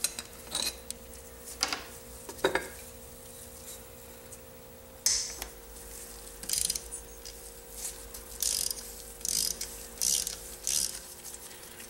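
Socket ratchet clicking in about ten short bursts as bolts are backed out of a motorcycle engine's valve cover.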